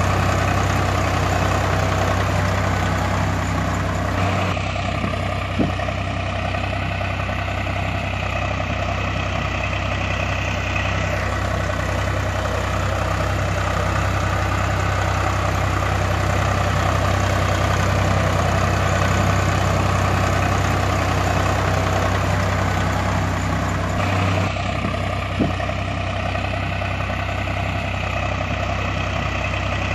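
Recorded engine idling steadily with a low hum, a sound effect looped so that it repeats itself about every 20 seconds, with a faint click each time round.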